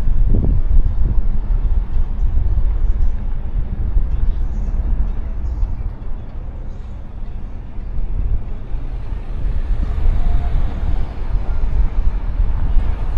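Heavy wind rumble buffeting the microphone while riding, over road and traffic noise. The traffic sound swells for a few seconds in the second half.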